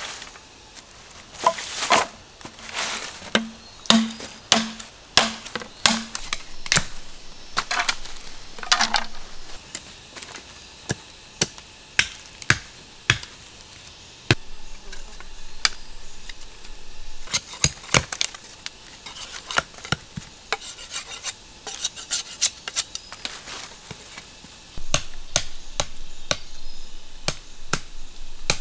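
Machete chopping and splitting bamboo: a long run of separate sharp knocks and cracks at irregular intervals, with stretches of quicker, lighter clattering.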